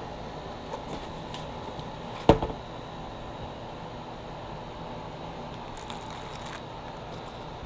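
Handling noise: one sharp knock about two seconds in, as of a grill tool or part of the case set down on a hard surface, with a few faint clicks, over a steady low hum.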